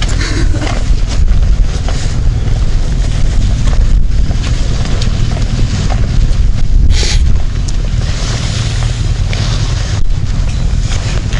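Motorcycle on the move: wind buffeting the microphone over a steady low engine and road rumble, with a brief hiss about seven seconds in.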